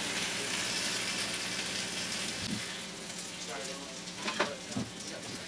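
Potatoes sizzling in hot frying oil as they are lifted out of the pan; the sizzle thins out about halfway through, and a couple of sharp clinks of a utensil follow near the end.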